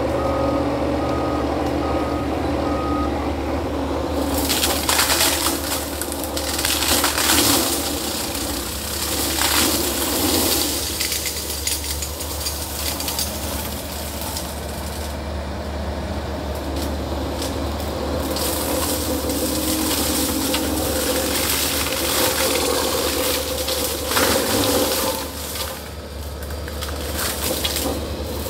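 Excavator-mounted flail mower on a Volvo mini excavator running steadily as it cuts and shreds bamboo, with its diesel engine and hydraulics droning under several loud crunching surges as the flail bites into the stalks. A travel alarm beeps steadily for the first few seconds.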